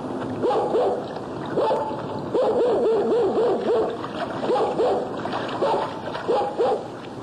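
Dogs barking in quick runs of several short barks, with pauses between the runs, over a steady background noise.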